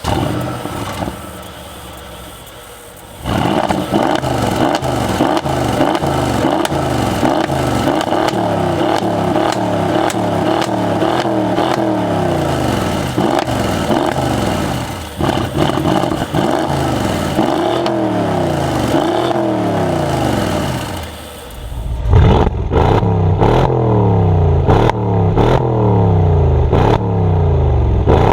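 Mercedes-AMG GLE 63 S Coupe's 5.5-litre biturbo V8 exhaust: it flares loudly as it fires up and settles to idle, then is revved over and over in quick blips, each a rise and fall in pitch. In the last few seconds, sharp exhaust crackles and pops break in between the revs.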